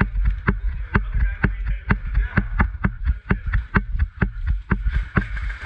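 Footsteps of a person jogging across a concrete floor, about four to five steps a second, each a dull thump.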